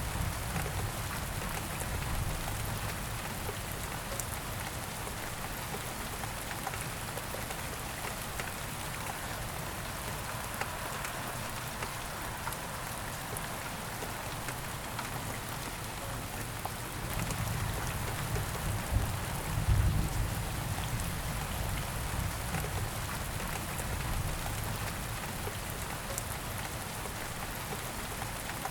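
Steady rain falling and pattering on surfaces. A low rumble swells for a few seconds about two-thirds of the way through.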